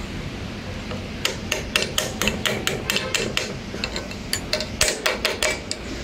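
Quick light metal-on-metal taps, about four a second, from a threaded steel rod striking a thermostat housing. They start about a second in and pause briefly near the end. The taps are knocking the new thermostat down so it sits fully in the Range Rover V8 housing.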